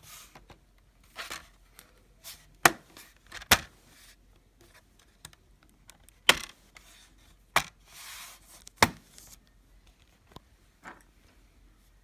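Plastic snap clips of a Lenovo ThinkPad L560's bottom cover clicking into place as the panel is pressed down around its edge: about five sharp snaps spread over several seconds, with softer plastic handling noises between.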